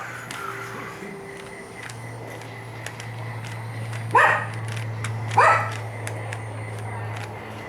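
A dog barks twice, about a second and a half apart, over a steady low hum.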